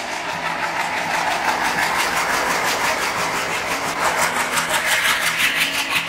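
A WDM-3A diesel-electric locomotive running past close by, then its passenger coaches. Loud rushing rail noise with a fast, even wheel clatter that grows louder over the last couple of seconds.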